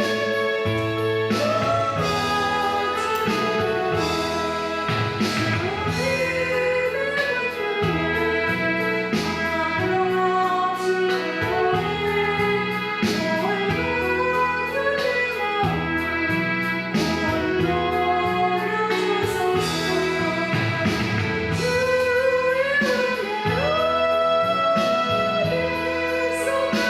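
A woman singing a Korean gospel song with vibrato over instrumental accompaniment.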